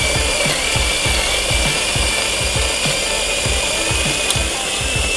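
CG9002 electric burr coffee grinder running and grinding coffee beans: a steady mechanical grinding noise with a high motor whine that rises slightly near the end.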